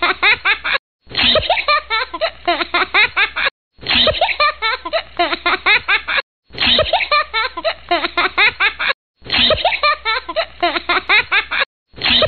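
A short clip of giggling laughter in quick bursts, looped: the same laugh repeats about every two and a half seconds, with a brief silent gap between repeats.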